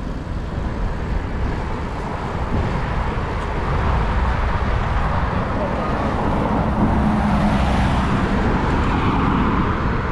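Road traffic heard from a moving bicycle, with wind rumbling on the GoPro's microphone; the traffic grows louder about four seconds in, and a vehicle passes close a few seconds later.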